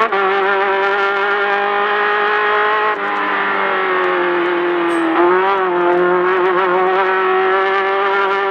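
Class 10 off-road race car's engine running hard at high, nearly steady revs, easing briefly about three seconds in and wavering up and down in the middle.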